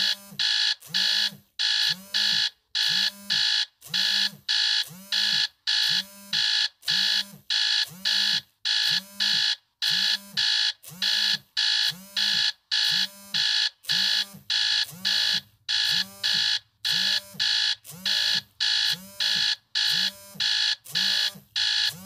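Smartphone alarm tone ringing: a short, bright electronic note repeated steadily, a little faster than once a second, with no change in pattern.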